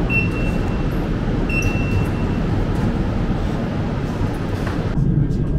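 Train running: a steady low rumble with two brief high squeals in the first two seconds and a few light clicks.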